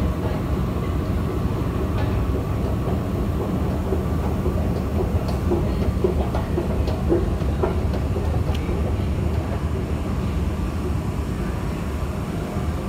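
Steady low rumble of a London Underground Jubilee line train and the running escalator in the station, with a few short clicks of footsteps about halfway through as the escalator reaches the platform.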